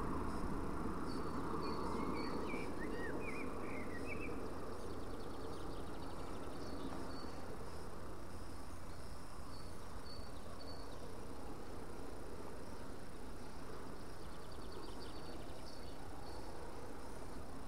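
Spinning reel being cranked steadily on a lure retrieve, a continuous whirring with faint light ticks, over a low rumble of wind on the microphone. A few short bird chirps come in about two to four seconds in.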